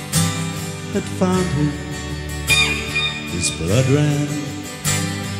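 Rock band playing live in an instrumental break, a lead electric guitar bending notes over the band.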